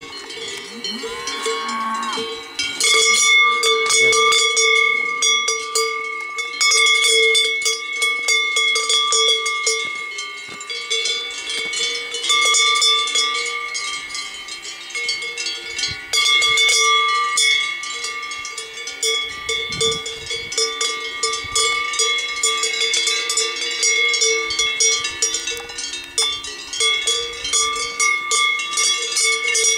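Cowbells worn by a herd of grazing cows, many bells clanging at once in an irregular, overlapping rhythm.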